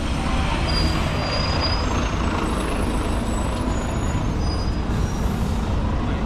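Road traffic on a busy street: cars and a double-decker bus running past, a steady rumble and hiss, with a few faint high squeaks in the middle, like bus brakes.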